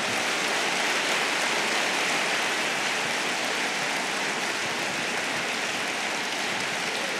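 A large seated audience applauding: a dense, steady clapping that eases slightly in the second half.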